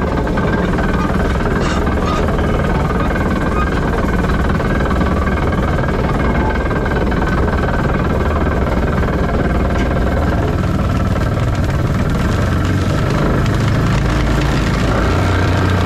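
Shrimp trawler's diesel engine running steadily under way, a loud low drone with a rattly, knocking edge on deck; the low hum shifts slightly near the end.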